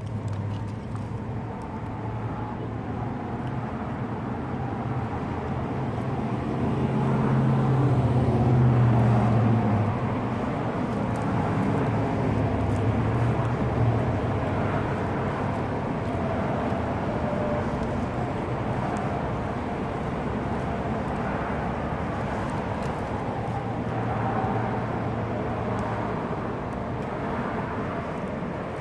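Road traffic going by: a steady rumble of car engines and tyres, swelling as a vehicle passes about eight seconds in, with smaller swells later.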